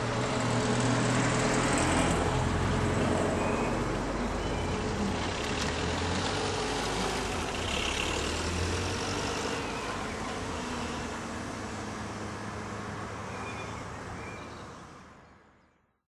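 Street traffic noise, with a vehicle's engine hum loudest about two seconds in and slowly easing off, before the sound fades out at the very end.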